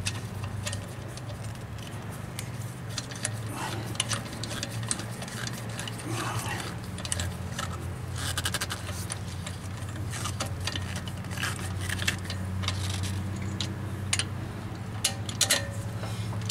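Small irregular metallic clicks and light rattling as a lug nut is spun by hand onto a wheel-spacer stud with a socket on an extension, over a steady low hum.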